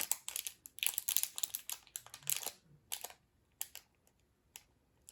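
Small plastic packets and containers of slime accessories being handled and opened: a run of quick crinkles and small clicks, busiest in the first three seconds and thinning out after.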